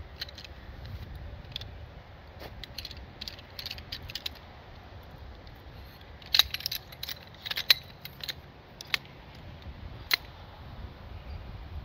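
Light metallic clicks and clinks of a collapsible backpacking chair's frame poles being fitted together during assembly, scattered throughout. They come thickest about six to eight seconds in, with one sharp click about ten seconds in.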